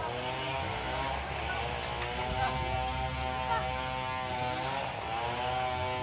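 An engine running steadily, its pitch wavering slightly.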